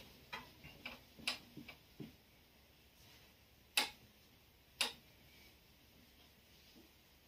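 A whiteboard being wiped with a duster: a run of small ticks and knocks in the first two seconds, then two sharper clicks about a second apart near the middle, over faint room hiss.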